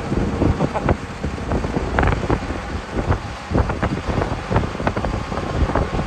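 Tractor engines running across an open field, with gusty wind buffeting the microphone in irregular knocks and rumbles.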